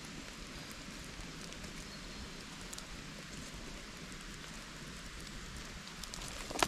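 Steady patter of rainwater in a wet forest, an even hiss at a fairly low level. A few sharp clicks come near the end as the twigs are disturbed.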